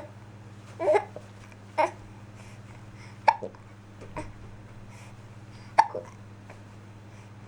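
Baby hiccuping, about five short hiccups one to two and a half seconds apart, some with a small voiced squeak.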